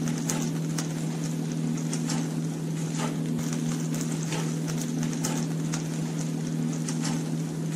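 Knife cutting raw chicken on a cutting board: irregular sharp taps over a steady low hum.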